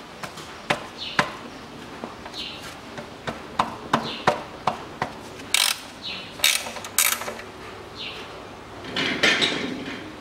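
Combination wrench working loose the drain plug of an oil pan: a series of sharp metal clicks and knocks, with a louder scrape about nine seconds in. A bird chirps about every two seconds in the background.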